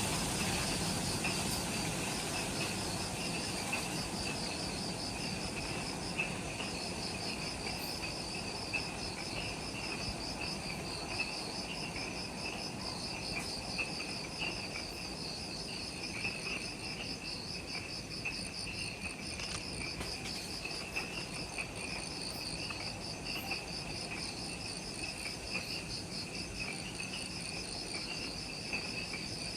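Dusk chorus of forest insects: several kinds trilling at once in fast pulsing rhythms, one high and one lower, over a steady low background hum of the forest.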